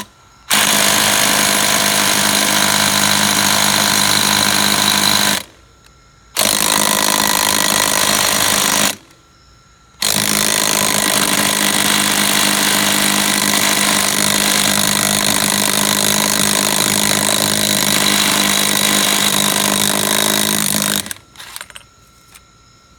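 Impact wrench hammering in three long bursts of about five seconds, two and a half seconds and eleven seconds, each starting and stopping sharply.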